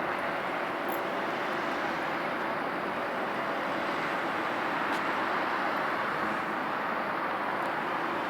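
Steady, even rushing noise of vehicles, with a couple of faint clicks about one and five seconds in.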